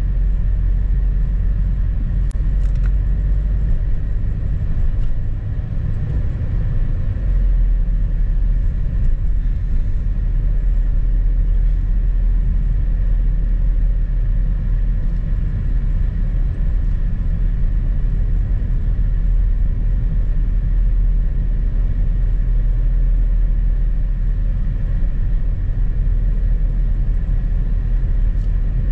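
Steady low rumble of a car driving along a snow-covered road, engine and tyre noise heard from inside the cabin.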